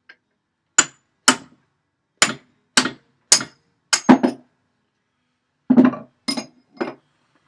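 Hammer striking steel, about ten sharp, ringing blows: a run of seven, a pause of over a second, then three more. The blows knock a part loose while an old blacksmith's leg vise is taken apart.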